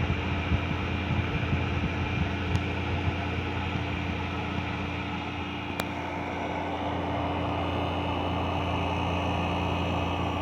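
Midea 5000 BTU window air conditioner running on low fan and cooling: a steady motor hum under an even rush of air. There is a sharp click about six seconds in.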